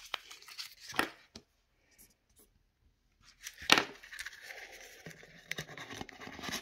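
Paper banknotes and a metal savings tin being handled: light rustling and clicks, then a single sharp knock a few seconds in, followed by steady scratchy rustling.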